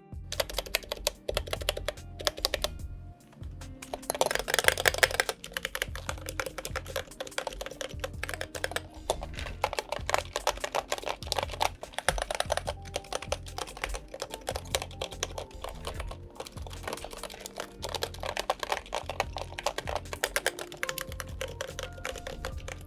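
Typing on the Iris aluminium split keyboard with Invyr Holy Panda tactile switches and ceramic keycaps: a dense, continuous run of key clacks, with a louder flurry about four seconds in. Background music plays underneath.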